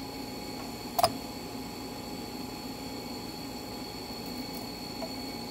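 Quiet steady background hum with a faint high-pitched whine, broken by a single sharp click about a second in.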